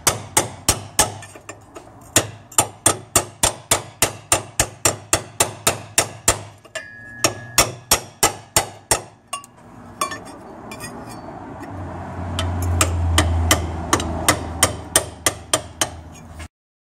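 Rapid, even hammer taps, about three or four a second, on a steel drift held against the flange of a Ford C6 automatic transmission's rear extension housing seal, working the old seal loose. After a short pause the tapping resumes over a low rumbling hum that swells in the second half.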